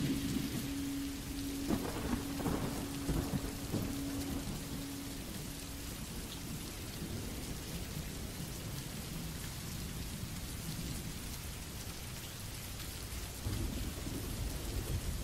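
Steady heavy rain with thunder rumbling, swelling with crackles about two seconds in and rumbling up again near the end. A low steady hum fades out about five seconds in.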